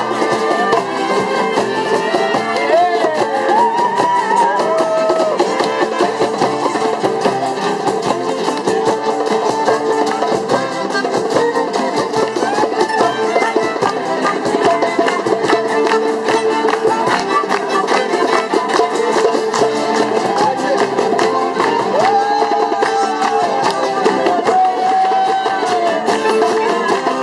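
Live acoustic folk jam: a fiddle playing a melody over a fast-strummed acoustic guitar and a shaken tambourine, steady throughout.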